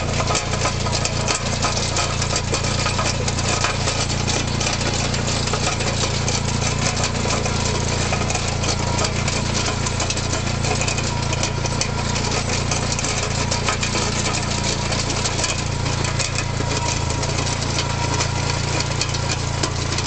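Benassi 20 HP compact tractor's engine running steadily under load while it drives a Selvatici series 120.35 spading machine through the soil, with a rapid, dense mechanical clatter from the working rig.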